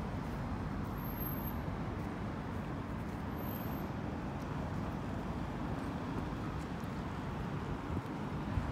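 Steady road traffic noise, a continuous low rumble without distinct events.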